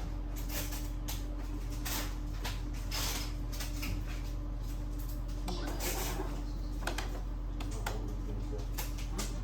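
Epson L6290 inkjet printer running a head-cleaning cycle: irregular clicks and ticks from its mechanism over a steady low hum.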